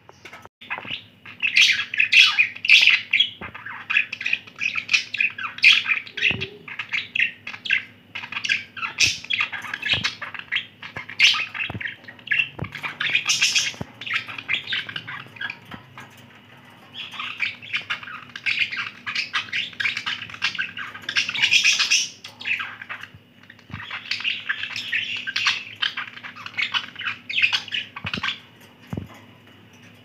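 Budgerigars warbling and chirping in fast, chattering runs, with a short lull about halfway through.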